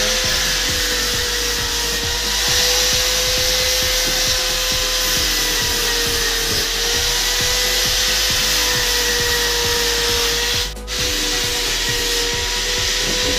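Handheld electric angle grinder with a sanding disc running continuously as it sands a wooden furniture part: a steady high motor whine over a rough sanding hiss. It breaks off briefly about eleven seconds in.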